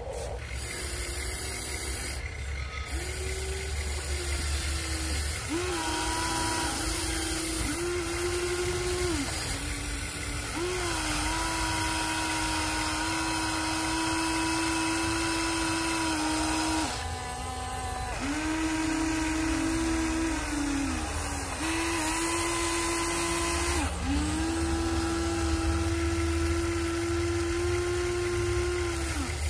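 Huina 1593 RC excavator's electric motors whining as the boom, arm and bucket work, a steady high whine in runs of one to six seconds that start and stop again and again. Each run shifts slightly in pitch as it starts.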